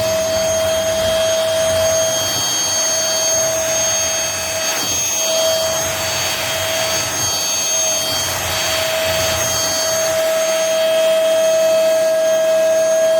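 MBYULO cordless stick vacuum running, a steady high motor whine over a loud rush of air that swells and eases in the middle.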